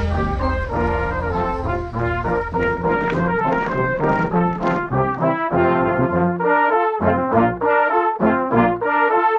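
Instrumental music played on brass instruments, trumpets and trombones, sounding a tune of held notes that change in steps. A low rumble sits under the first half and stops about five seconds in.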